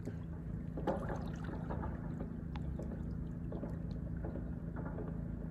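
A motor running steadily with a low, even hum, with a few faint brief sounds over it.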